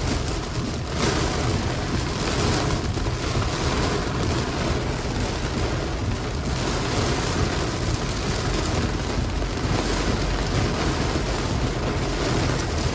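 Heavy rain pouring down on a moving car: a steady, even hiss with a low road rumble underneath.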